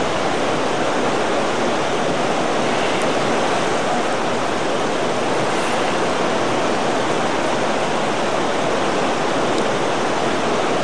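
Heavy rain pouring down, a steady, even rush with no let-up.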